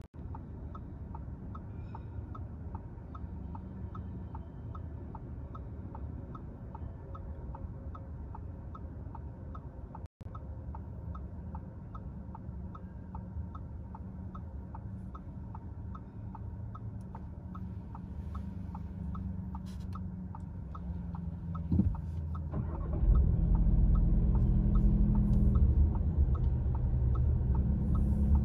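Car turn-signal indicator clicking at a regular pace over a low engine and road rumble while the car waits. There is a single knock about 22 seconds in, and then the engine and road rumble get much louder as the car pulls away.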